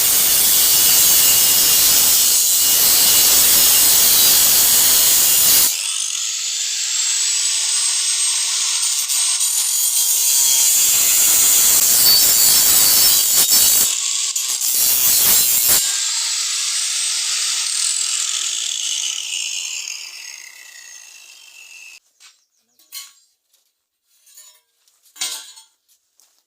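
Power cutter (angle grinder) cutting through an iron rod: a loud, hissing grind that eases and bites again a few times, then the motor's whine falls away as the disc spins down about 20 seconds in, followed by a few light clicks.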